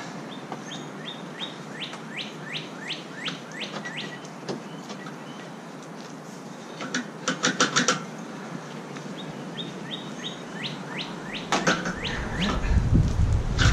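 A songbird singing runs of quick down-slurred whistled notes, about three a second, twice over. A short cluster of sharp clicks comes midway and another near the end, followed by a low rumble.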